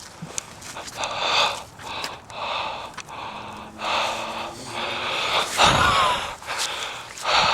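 A person breathing hard: a run of loud breaths in and out, roughly one a second, the loudest about six seconds in.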